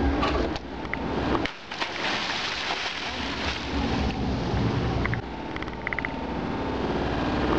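Wind buffeting the microphone: a loud, gusting rumble with hiss. It starts suddenly.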